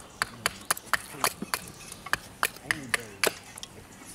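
Hatchet carving a wooden spoon blank held upright on a chopping stump: quick, light chops into the wood, about three or four a second.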